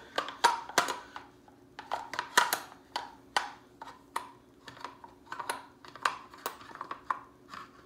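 Irregular clicks and knocks of a Remington Versa Max shotgun's forend being worked back onto the gun, a fiddly fit that takes some finagling.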